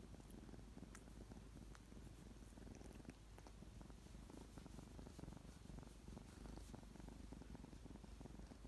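Three-month-old kitten purring softly and steadily while being stroked under the chin and on the chest: the purr of a sleepy, contented kitten asking for affection.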